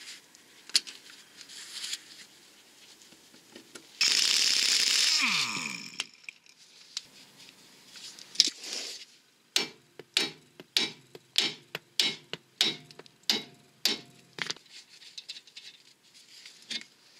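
Work on a car's track rod end: a power impact wrench runs for about two seconds and winds down with a falling pitch. Several seconds later comes a run of sharp metallic knocks, about two a second.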